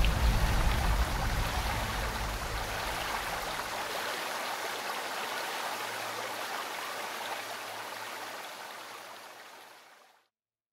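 Soundtrack outro: an even rushing noise, with a deep boom dying away over the first few seconds, fading out to silence near the end.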